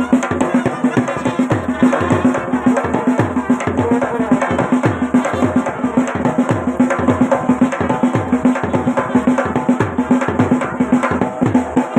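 Himachali band baja playing: dense, fast drumming over a steady held tone.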